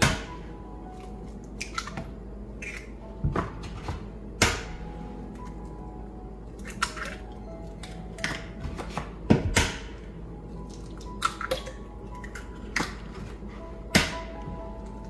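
Eggs being cracked against a mixing bowl, a sharp knock every few seconds, over soft background music.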